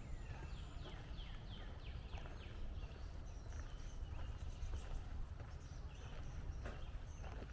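Woodland birds singing: one bird gives a quick series of short downslurred notes, about four a second, early in the stretch, with scattered chirps from other birds after. Footsteps crunch on the trail beneath the birdsong.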